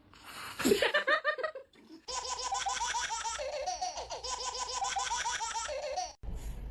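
Laughter in quick, bubbling bursts, followed by a longer run of steady, repeating pitched sounds.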